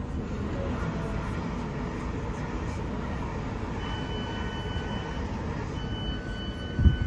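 Train running with a steady rumble. A thin high tone sets in about four seconds in and breaks into short pieces near the end, and a single heavy thump sounds just before the end.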